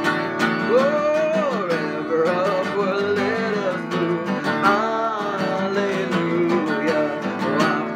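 Acoustic guitar strummed in a steady rhythm, with a voice singing a slow melody over the chords.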